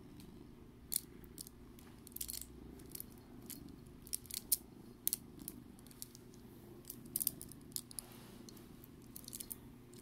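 Cat purring steadily while it rubs its head against beaded bracelets on a wrist, setting the glass and stone beads clicking and clattering against each other in irregular bursts.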